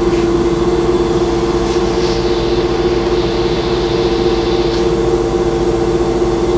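Steady hum of industrial machinery running nearby: an even drone with two strong, unchanging tones over a low rumble.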